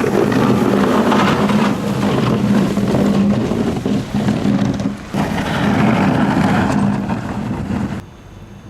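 A motor vehicle engine running steadily with a low hum, over a noisy rush, cut abruptly several times as shots change.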